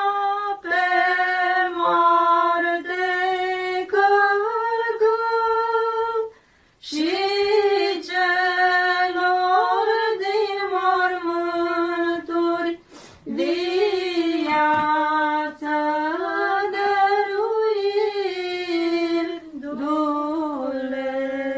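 An Orthodox nun singing church chant a cappella, holding long notes and stepping between them in phrases, with short breaths between phrases.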